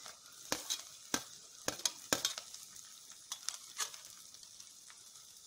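Sliced onion sizzling as it hits hot oil in a kadai along with cumin and green chillies. A steady hiss runs under a few sharp taps of a spoon against the pan and bowl, most of them in the first four seconds.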